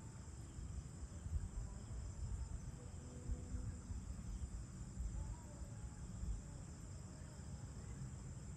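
Crickets chirring steadily in a continuous high-pitched drone, with an uneven low rumble underneath.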